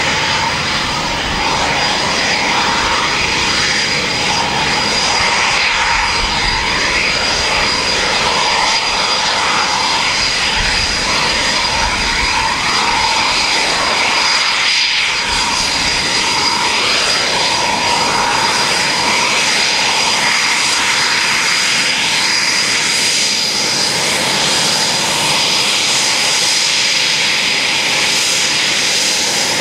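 Eurofighter Typhoon's twin EJ200 turbofans running at taxi power, a steady high-pitched whine over a rushing jet noise.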